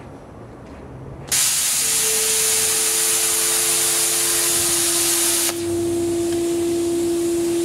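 Plasma cutter cutting steel plate: a loud, even hiss starts suddenly about a second in, then drops to a softer hiss at about five and a half seconds and carries on, with a faint steady tone under it.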